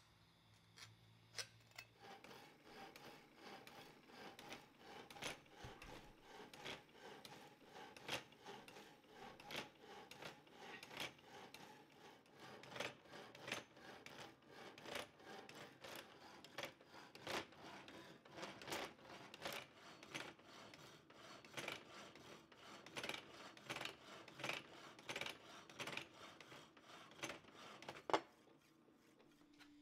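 Hacksaw blade cutting through a steel plate clamped in a vise, lubricated with cutting fluid: a steady run of rasping strokes about one every three-quarters of a second, ending with a sharp clank near the end.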